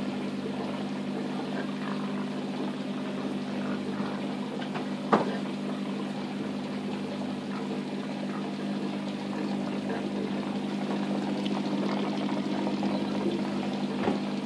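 Aquarium pump humming steadily, with water bubbling and trickling in the tank. A sharp knock about five seconds in and a smaller one near the end.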